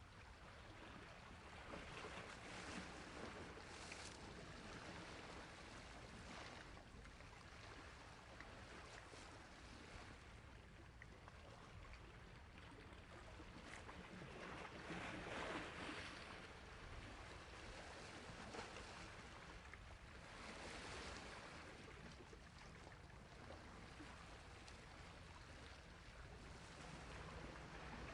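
Faint sea waves washing onto a shore: a steady rush of water that swells into a few louder surges a few seconds apart.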